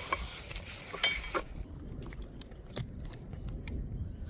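A metal crowbar clinks once with a short ring about a second in, followed by scattered light clicks and scrapes as it is worked among the roof shingles to get at the nails.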